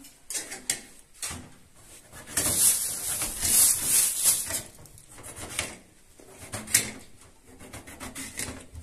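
Rubbing and scraping sounds, loudest for about two seconds in the middle, with scattered clicks and knocks.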